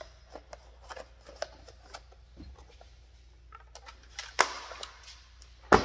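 Packaging being handled while unboxing fishing lures: light crinkling and clicking of plastic bags and cardboard, then two sharp louder noises near the end, the second the loudest.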